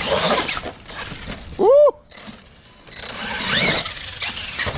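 Electric RC monster truck motor revving in short blips. The loudest blip comes about two seconds in, with a quick rise and fall in pitch.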